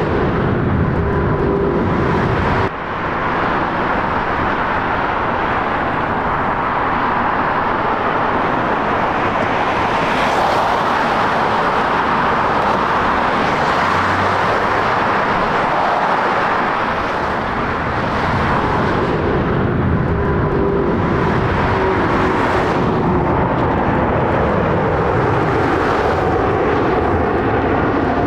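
Boeing 787 Dreamliner's jet engines at takeoff power: a steady, loud roar with a faint whine that slowly falls in pitch as the jet climbs away.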